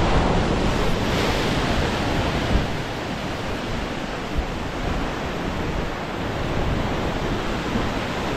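Ocean surf surging and foaming over rocks in a narrow gutter, a steady loud wash, with wind rumbling on the microphone.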